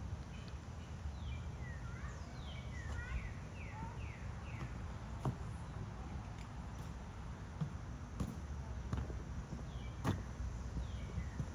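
Birds calling with short, quick downward-sliding chirps, a busy run of them in the first few seconds and more near the end, with a few sharp knocks in between.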